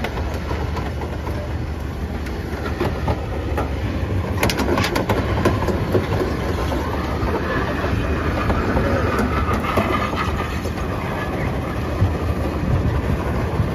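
Diesel truck engine running with a steady low rumble, with a short cluster of sharp clicks and clanks about four and a half seconds in.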